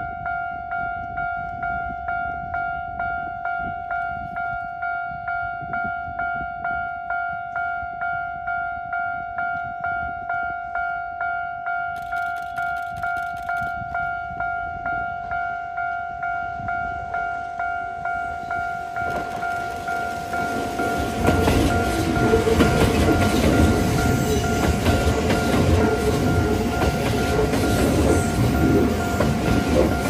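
Japanese level-crossing warning bell ringing steadily at about two strokes a second. From about twenty seconds in, a Kintetsu limited express, a 30000 series Vista Car set coupled with a 22600 series set, arrives and passes close by. Its running noise rises to the loudest sound, over the still-ringing bell.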